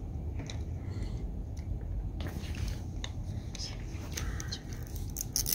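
Quiet handling of a small plastic toy package: scattered light clicks and rustles over a low rumble, with a faint murmuring voice.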